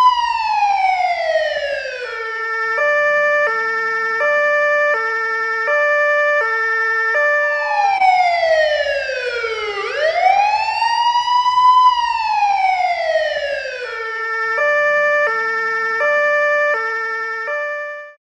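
Police car siren switching between a slow wail that rises and falls and a hi-lo two-tone, the two notes alternating about every half second. The wail and the two-tone each come twice, and the siren cuts off just before the end.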